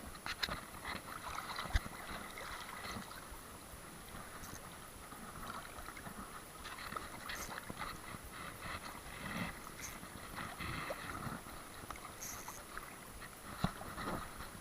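Water sloshing and lapping, with scattered small clicks and knocks and one sharper knock about two seconds in.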